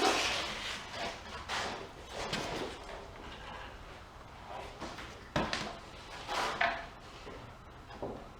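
Several knocks and scrapes of wooden boards being handled on a pool table frame, with a sharp knock about five and a half seconds in.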